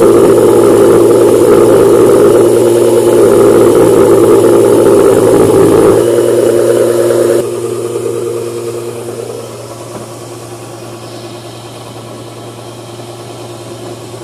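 Chakki grain mill running while grinding turmeric: a loud, steady machine hum and grinding noise. About seven and a half seconds in it drops to a much quieter steady hum.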